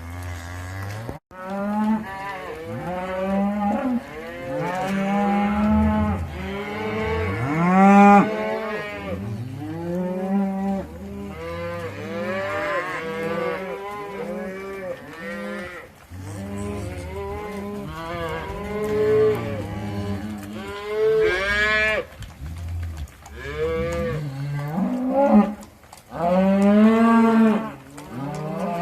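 A herd of cattle being driven, many animals mooing over one another in a nearly unbroken chorus of overlapping calls.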